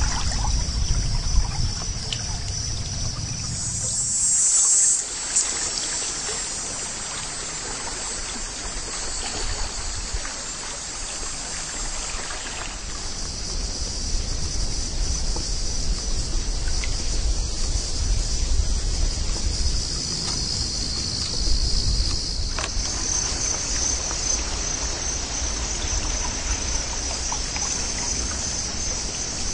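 Water trickling and lapping around a kayak on a slow river, with insects keeping up a steady high-pitched drone and a low rumble underneath.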